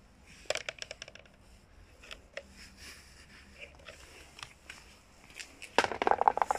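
Plastic car hubcaps being handled: a quick run of clicks and knocks about half a second in, a few light taps, then a louder rattling clatter near the end.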